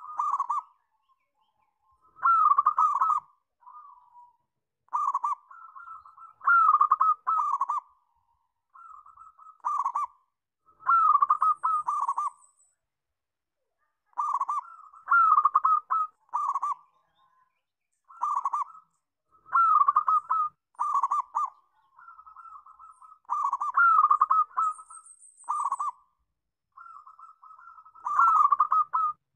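Zebra dove (perkutut) singing: phrases of quick, stuttering coos repeated every second or two, with short pauses between.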